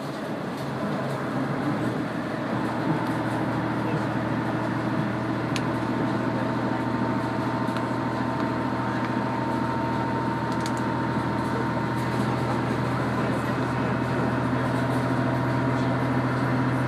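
KiHa 100 diesel railcar's engine running under power, heard from inside the passenger car: a steady engine note with a hum of several even tones that grows louder about two seconds in and then holds.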